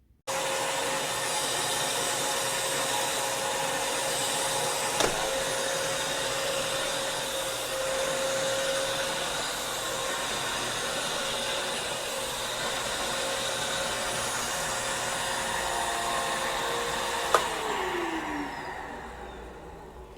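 Bissell CleanView Swivel Rewind Pet Reach upright vacuum cleaner switched on just after the start and running steadily with a constant hum. It is switched off with a click near the end, and the motor winds down in falling pitch.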